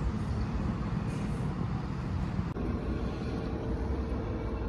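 Steady low rumble of outdoor vehicle and traffic noise. About two and a half seconds in it changes abruptly to a steadier hum with a faint held tone.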